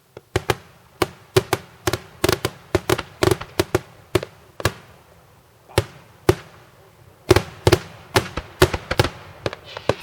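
Daytime fireworks shells bursting overhead in a rapid, irregular string of sharp bangs, often several in quick succession, each with a short echoing tail.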